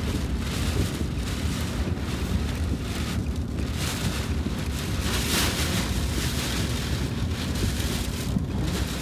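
Strong storm wind and rain buffeting a car, a constant low rumble with gusts of hiss that swell and fade, the strongest about five seconds in.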